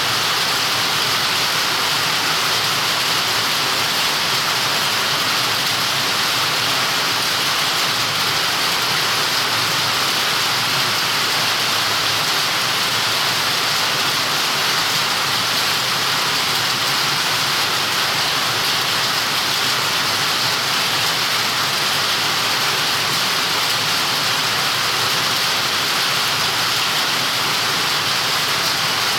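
Heavy rain falling, a steady, even hiss with no breaks or separate impacts.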